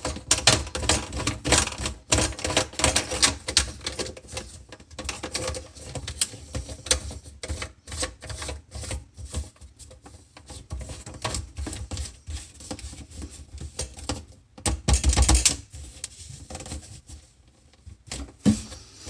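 Plastic drain pipe and trap fittings being handled and pushed together: a quick, uneven run of clicks and knocks, with a louder clatter about 15 seconds in.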